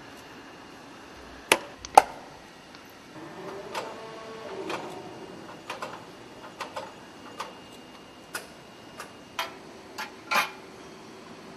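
Irregular sharp clicks and knocks, about a dozen, the loudest a pair close together about two seconds in, with a short stretch of clattering noise around four to five seconds in.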